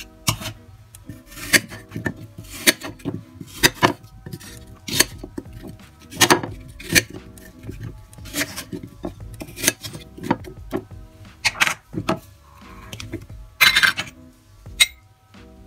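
Kitchen knife cutting peeled apple into chunks on a ceramic plate, the blade clicking against the plate about once a second, some fifteen sharp taps in all.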